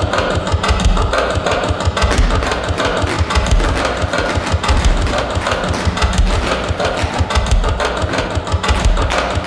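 Tap shoes of a group of dancers clattering rapidly on a stage floor: a dense, unbroken run of metal clicks over low thuds.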